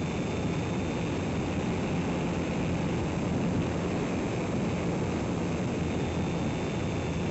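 A steady drone from a radio-controlled EasyGlider motor glider in flight, its motor and propeller running under an even rush of air noise, heard from on board.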